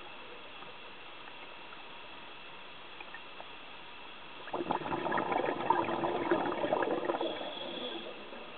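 Scuba diver's exhaled bubbles heard underwater: a bubbling, gurgling rush that starts about halfway through and lasts about three and a half seconds, over a steady faint hiss.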